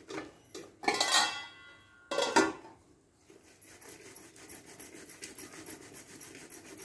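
Ripe palmyra palm fruit rubbed by hand against an upturned perforated aluminium rice-washing bowl to force the pulp out: two louder bursts about one and two seconds in, then from about three seconds in a quick, even rasping rhythm of strokes.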